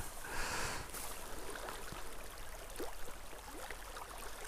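Stream water flowing steadily, a faint even wash of sound with no speech over it.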